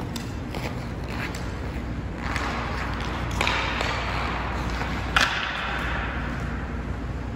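Ice skates carving and scraping across the ice in a hiss that builds and fades over a few seconds, then a single sharp crack of a hockey stick shooting a puck about five seconds in, over a steady low rumble.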